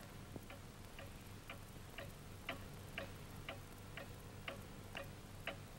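Clock ticking faintly and steadily, about two ticks a second.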